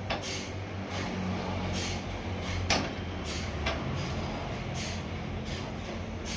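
Sawmill machinery running steadily with a low hum, broken by short hissing bursts every second or so and one sharp knock a little under three seconds in.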